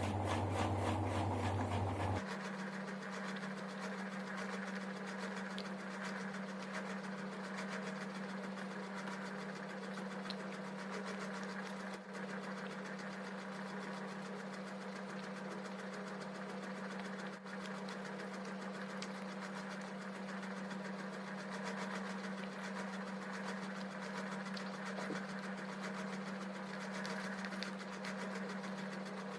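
A steady machine-like hum on one low, constant tone with fainter overtones, its sound shifting about two seconds in and then holding even.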